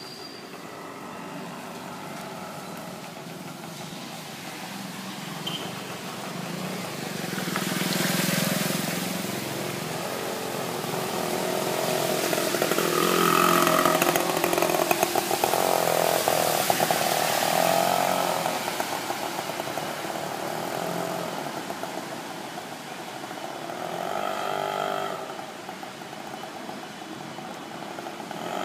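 Vehicles driving through a flooded road: the swish of tyres through standing water, with an auto-rickshaw's small engine passing close and loudest about halfway through, its pitch rising and falling. Another engine goes by near the end.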